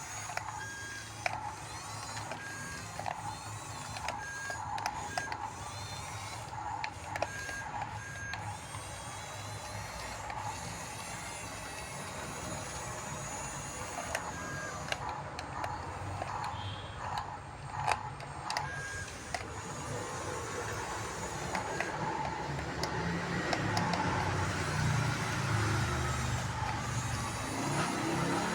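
Radio-controlled model bulldozer at work: its small electric drive motors and gearboxes whine, with scattered clicks and a few short beeps. A low engine-like rumble builds from about two-thirds of the way through and is loudest near the end.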